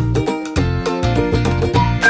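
Upbeat background music with a steady, repeating bass beat.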